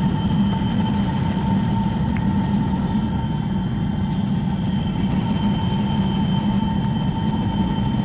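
Homemade waste-oil foundry burner running with its blower fan forcing air into the flame: a loud, steady rushing roar with a constant high whine from the fan, the burner holding a fast-swirling flame cyclone.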